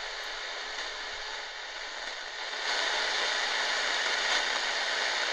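Tecsun GR-138 shortwave radio's speaker giving out a steady static hiss as the dial is tuned between stations. The hiss gets louder about two and a half seconds in.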